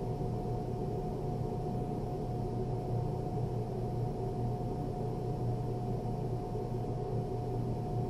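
A steady, unchanging low hum with a faint constant whine above it.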